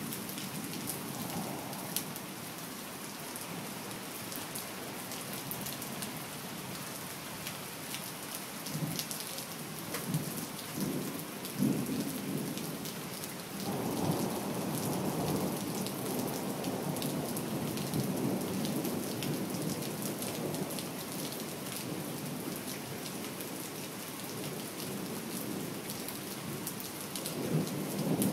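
Heavy rain falling steadily, with many fine drop ticks close by, and thunder rumbling: short rumbles early on and near the end, and a long roll of thunder starting about halfway through and lasting several seconds.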